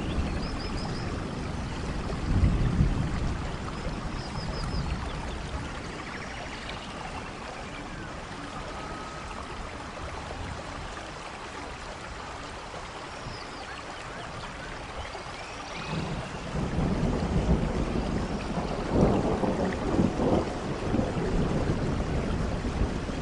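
Steady rain with thunder: a low rumble near the start, quieter rain through the middle, then a longer, louder roll of thunder building about two-thirds of the way in.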